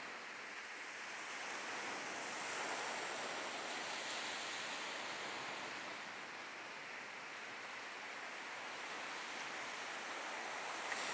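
Small waves washing onto a sandy beach: a steady surf hiss that swells a couple of seconds in and then eases off.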